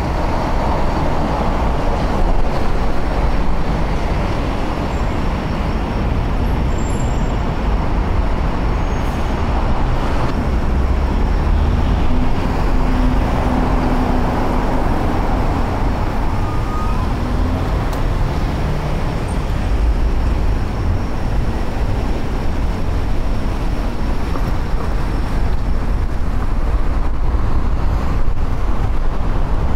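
Steady rushing noise of a bicycle ride along a street: wind and rolling tyre noise, heaviest in the low end, with a faint low hum around the middle.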